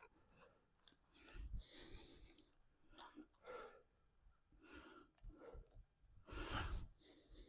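Faint breathing: a few soft breaths, one to two seconds apart, with the longest and loudest about six and a half seconds in.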